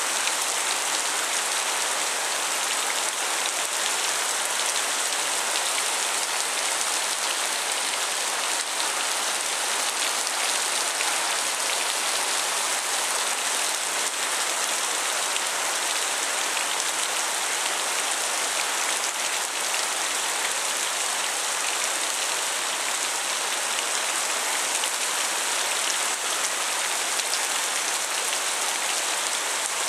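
Heavy thunderstorm rain pouring down, a steady dense hiss that neither builds nor fades.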